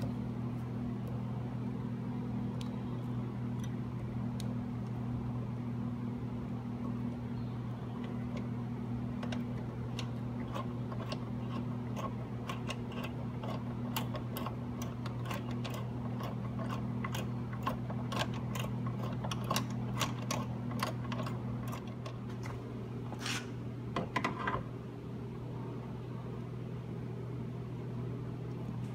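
Hand rivet nut tool setting a rivet nut into sheet metal: a run of quick small clicks about a third of the way in, ending in two louder scraping bursts past the three-quarter mark, over a steady low hum.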